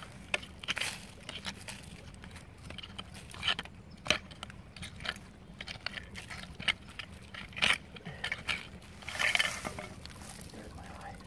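Hand digging tool scratching and scraping through dump dirt and leaf litter, with irregular crunches and a few sharper knocks against buried debris.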